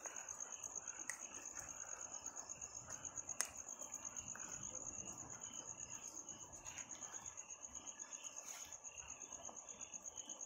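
Night insects chirping: a steady, high-pitched trill that pulses about five times a second. A few sharp clicks cut in, the loudest about three and a half seconds in.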